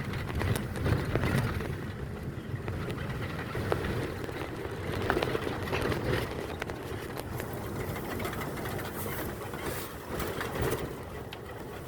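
A vehicle's engine running steadily with road noise as it drives along.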